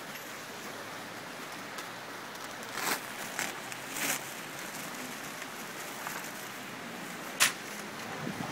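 Steady rushing of water, with brief rustles and knocks as woven plastic sandbags are handled and filled; the loudest knock comes about seven seconds in.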